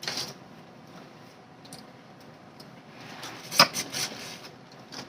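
Crawfish being cracked and peeled by hand: a short crack at the start, then a cluster of sharp cracks and clicks a little past three seconds in.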